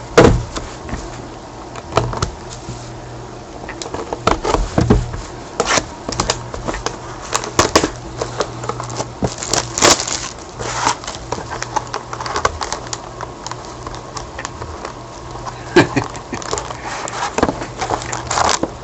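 Cardboard trading-card box (Upper Deck Ultimate hockey) being handled and opened by gloved hands: scattered clicks, taps and short scrapes of cardboard, over a steady low hum.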